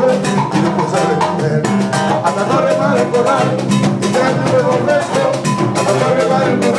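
Live band music: a man singing through a microphone and PA over guitars, bass guitar and drums keeping a steady, quick beat.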